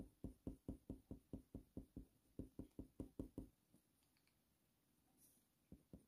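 Faber-Castell Polychromos coloured pencil making quick short strokes on heavy hot-press watercolour paper, heard as faint soft taps about five a second. The taps stop for about two seconds and start again near the end.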